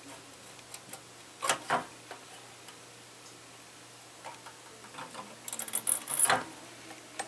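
Soldering iron pressing copper desoldering braid onto header-pin joints of a circuit board: scattered faint ticks and clicks, then a short burst of fine crackling about five and a half seconds in as the rosin flux boils off under the hot tip.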